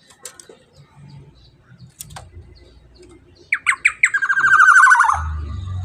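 Black-naped oriole (kepodang emas) calling: a few short falling notes, then a loud call of rapid strokes lasting about a second that drops in pitch at its end. A low rumble follows near the end.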